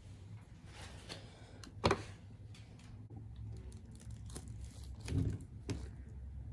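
Tall glass candle jars being picked up and set down on a wooden work board: a few sharp knocks, the loudest about two seconds in and two more near the end, over a low steady hum.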